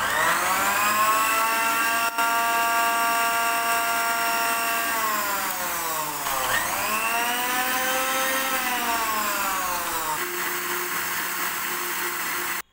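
Electric mixer grinder running, blending watermelon chunks with sugar and mint into juice: a loud motor whine that dips in pitch about five to six seconds in and climbs back, then slowly sags before cutting off suddenly near the end.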